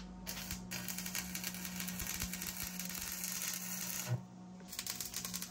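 Stick welding arc crackling and sputtering as angle-iron grate supports are tack welded to the steel wall of a smoker's cooking chamber, over a steady low hum. The arc breaks off about four seconds in and strikes again a moment later.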